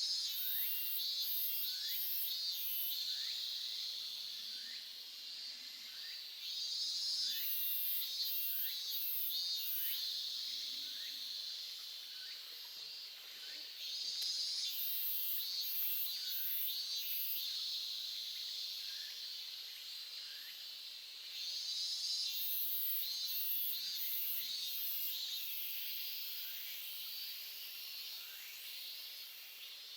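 Stream water running with an insect calling over it in repeated phrases of a few quick high pulses, one phrase about every seven to eight seconds.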